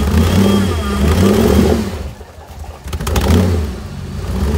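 Off-road 4x4 engine revving in repeated surges, dropping back about two seconds in. A quick rattle of clicks comes just before another short rev near three seconds, and the revs rise again near the end.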